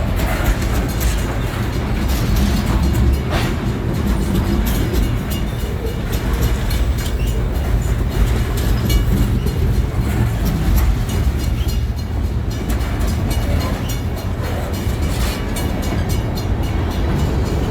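Railroad train rolling past, a steady heavy rumble of the cars with scattered sharp clicks from the wheels.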